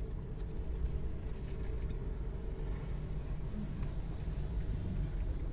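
Steady low hum inside a car cabin, with faint chewing sounds of a fried snack in the first second or so.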